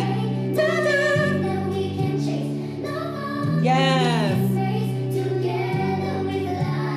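Three young boys singing a pop ballad together over an instrumental backing, holding notes with vibrato; about four seconds in, a vocal run sweeps up and back down.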